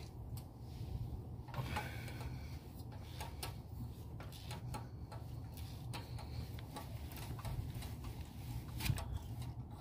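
Hand ratchet on a socket extension clicking as it is worked back and forth, loosening a spark plug from the cylinder head: a run of light, uneven ticks.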